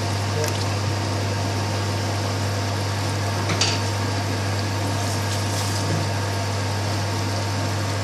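Meat and potato curry simmering in a steel pot on a gas hob, over a steady low hum. A brief sharper noise comes about three and a half seconds in.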